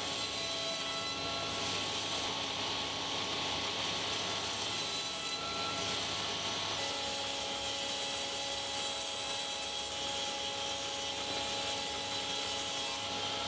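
Table saw running steadily: an even machine noise carrying a few faint, constant high tones, with no starts, stops or sharp changes.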